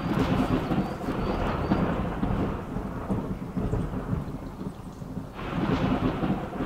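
Rolling thunder, starting abruptly and rumbling on, easing slightly past the middle and swelling again near the end.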